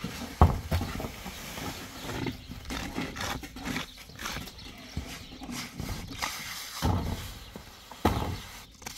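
Hand concrete work on a roof: wet mortar tipped out of a basin and scraped and spread with a trowel, a run of scrapes and short knocks. The sharpest knock comes about half a second in, another about eight seconds in.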